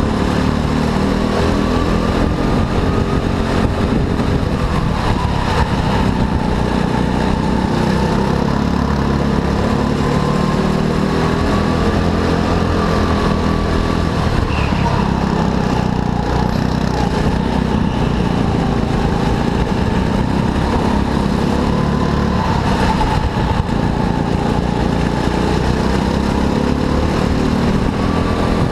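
Go-kart engine running at racing speed, its pitch rising and falling every few seconds as it accelerates and slows through the corners.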